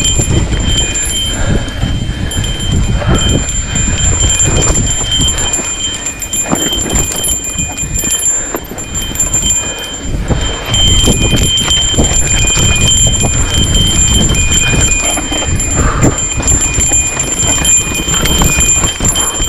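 Mountain bike rolling fast down dry, rocky dirt singletrack: tyres on dirt and stones and the bike rattling over bumps, a loud, continuous rumble full of small knocks, with heavy wind rumble on the camera microphone.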